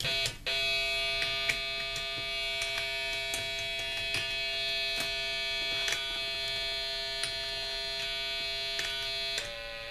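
Homemade Snap Circuits synthesizer sounding a steady, buzzy electronic drone, with scattered clicks as circuit contacts are touched. The tone drops out briefly just after the start, and its pitch shifts near the end.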